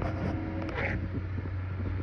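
Computer running with a steady low hum and a few faint steady tones above it, the weird noise that the uploader wonders may come from the heat.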